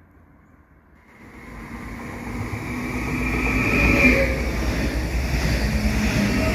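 An electric train running through a station, growing louder from about a second in, with a steady whine over the running noise of the wheels.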